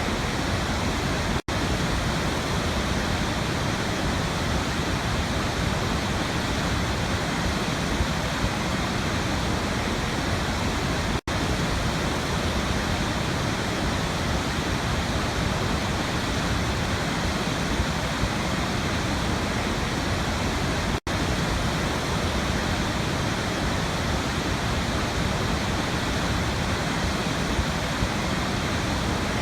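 Waterfall, a steady, dense rush of falling water. It cuts out for an instant three times, about ten seconds apart.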